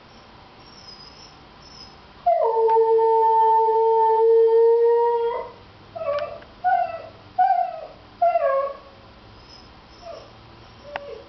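Siberian husky howling: one long, steady howl starting about two seconds in and held for some three seconds, then four short howls that each fall in pitch, and a couple of fainter ones near the end.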